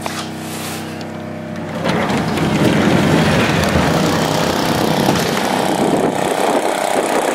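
A small engine runs steadily. About two seconds in, a loud rush of blizzard wind, gusting at around 40 miles an hour, hits the microphone and takes over.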